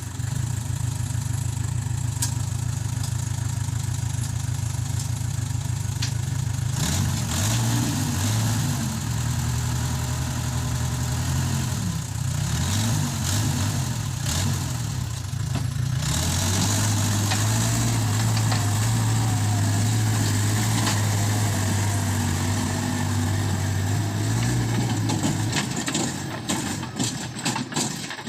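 Case 580K backhoe's diesel engine running steadily. Its note changes about seven seconds in and again at sixteen seconds, where it settles slightly higher and steadier. Near the end it drops back, with a run of small clicks.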